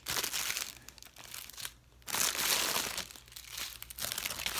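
Clear plastic bags crinkling as hands rummage through a packet of small bagged diamond-painting drills. The rustling comes in irregular bursts, with a short break just under two seconds in.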